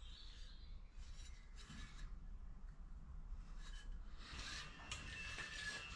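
Faint rubbing and scraping of a metal cone pulley handled and turned in the hands, with a few light knocks.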